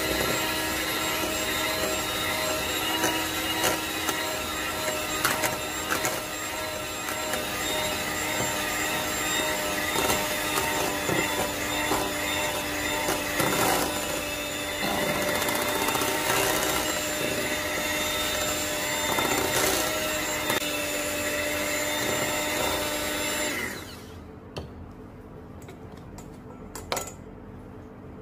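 Electric hand mixer running steadily, its beaters whisking cheesecake batter of cream cheese, eggs and flour in a bowl, then switched off a few seconds before the end. A couple of light knocks follow.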